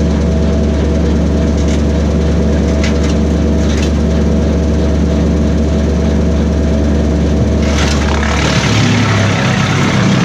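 Kubota B2601 compact tractor's three-cylinder diesel running steadily at speed, driving a BECO 4-inch PTO wood chipper, with a few faint crackles. Near the end a loud rush of chipping noise sets in and the engine note shifts as the chipper takes a load.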